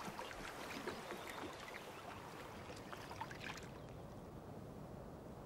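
Faint water lapping against the side of a wooden rowboat, with small scattered splashes, dying away about three and a half seconds in to a faint hiss.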